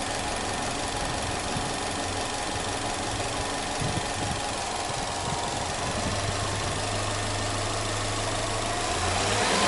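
Subaru Impreza S-GT (GH8) turbocharged EJ20 2.0-litre flat-four idling steadily, its revs starting to climb near the end.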